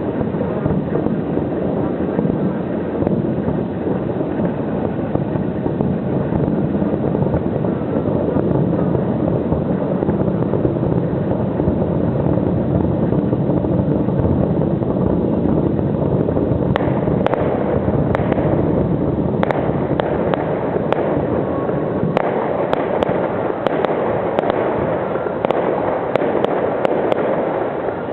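Fireworks display: a dense, continuous rumble of shell bursts. About two-thirds of the way through, many sharp cracks and crackles join in.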